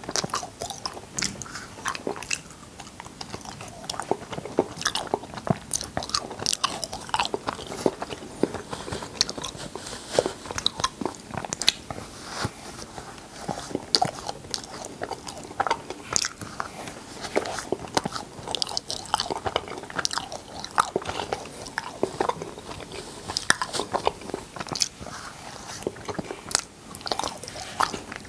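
Close-miked eating of cotton candy: a steady, irregular run of short mouth clicks and smacks as the spun sugar is chewed.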